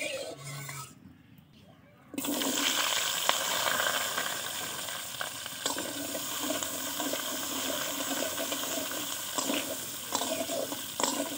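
Cubed potatoes go into hot oil in a large steel wok about two seconds in and sizzle loudly and steadily, with a few scrapes of a steel spatula stirring them.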